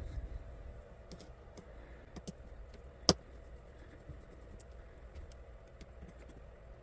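Small metal parts of a Reate PL-XT folding knife and a small driver clicking and tapping as the knife is taken apart: scattered light clicks, with one much sharper click about three seconds in.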